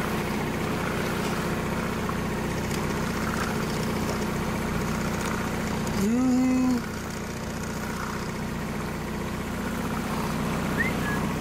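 Boat engine idling steadily. About six seconds in, a short pitched call rises and then holds for under a second, louder than the engine.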